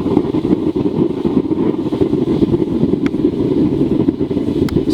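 Forced-air waste oil burner firing into a furnace, turned down to a low setting: a steady, fluttering low rumble of flame and blower. Two sharp ticks sound about three seconds in and near the end.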